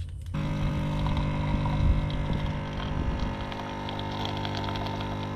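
Capsule coffee machine's pump humming steadily as it brews, with coffee running into a stainless steel mug; the hum starts suddenly about a third of a second in.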